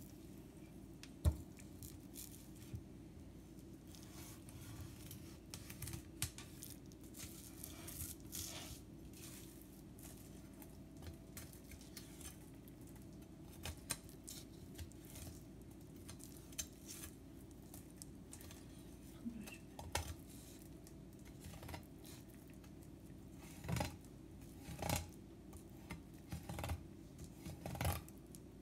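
A kitchen knife filleting a morwong on a wooden chopping board: a string of short, irregular scraping and clicking strokes as the blade works through the scaly skin and along the bones, with a sharp knock about a second in and louder strokes near the end.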